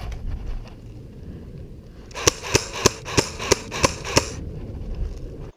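Airsoft gun firing a quick string of about seven sharp shots, roughly three a second, starting about two seconds in.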